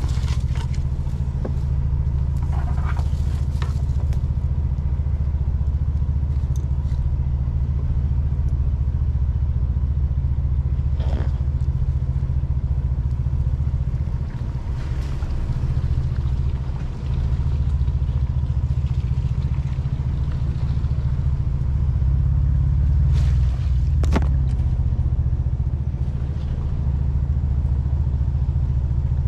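Ford Bronco driving slowly on an off-road trail: a steady low engine drone with a few sharp knocks and rattles, near the start, midway and late on.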